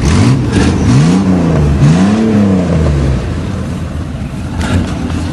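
A motor vehicle's engine revving twice, its pitch climbing and falling back with each rev, then easing off to a lower run.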